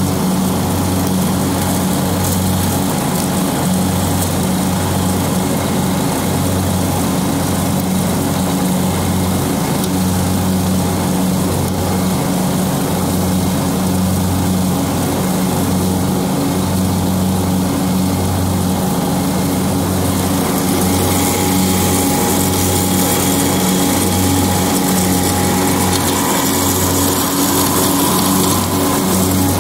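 John Deere X724 garden tractor's engine running steadily at mowing speed with the mower deck cutting grass, a low even hum that pulses rhythmically. A brighter hiss joins it about two-thirds of the way through.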